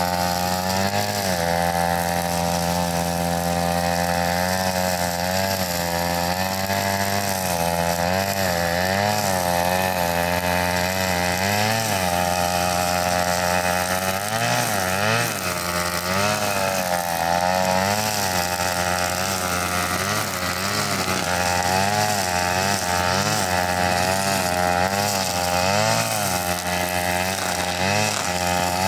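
Small engine of a wheeled trolley brush cutter running continuously, its pitch rising and falling again and again as the cutter is worked through tall grass.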